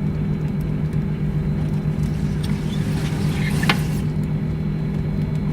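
Steady low mechanical hum with an even noise under it, and one short click about two-thirds of the way through.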